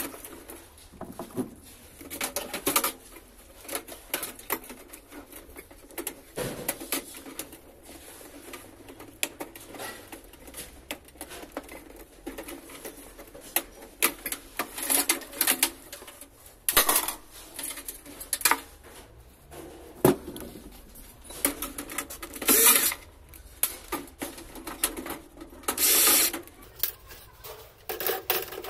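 Irregular clicks, clacks and rattles of plastic connectors, hand tools and metal parts as an old desktop PC is taken apart inside its steel case, with a longer noisy burst near the end.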